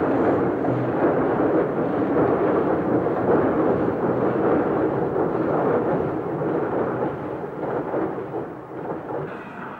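CC50-class Mallet articulated steam locomotive working a train: a loud, continuous rumbling roar of exhaust and running gear that fades away near the end.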